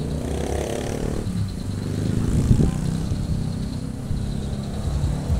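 Car driving slowly, a steady low engine and road rumble, with a single thump about halfway through.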